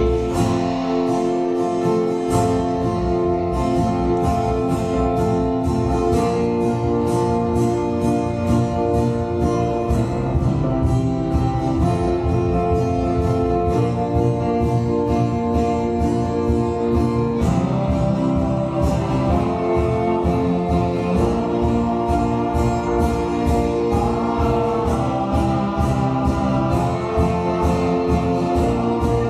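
Live acoustic folk-rock band playing: strummed acoustic guitar, bowed violin, upright bass, drums and keyboard over a steady beat, with some singing.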